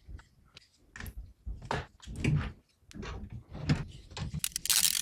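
Handling noises from a PC case being worked on: a string of knocks and clicks, then a louder scraping rustle near the end.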